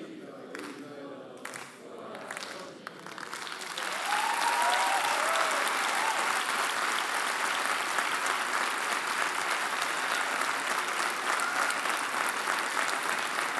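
Large theatre audience applauding: a few scattered claps and voices at first, then full applause swelling in about four seconds in and holding steady, with a few whoops as it builds.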